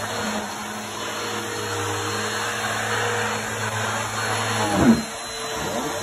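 Bissell Helix upright vacuum cleaner running over carpet with a steady motor hum and rushing air. Near the end its pitch dips and swings, with one brief loud surge.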